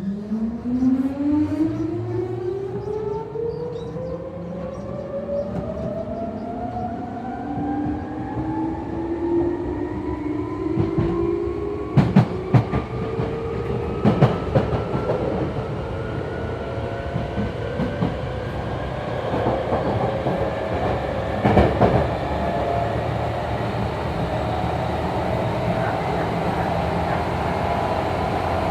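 Hankyu 3300-series electric train's Toyo TDK-831-A traction motors, under resistance control, whining steadily higher in pitch as the train accelerates from a stop. The whine is doubled by a second, slightly out-of-step whine from the paired car, whose wheels are turned to a different diameter. A few sharp paired knocks from the wheels over track joints come partway through.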